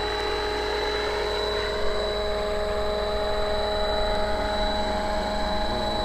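Radio-controlled scale helicopter in flight: its motor and rotors give a steady whine that holds one pitch throughout.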